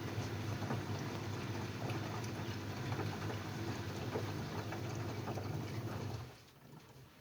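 LG F1281HD washing machine drum turning during the rinse, a steady low hum with scattered knocks and clatter, which the owner finds noisy. The drum stops about six seconds in and the sound falls away.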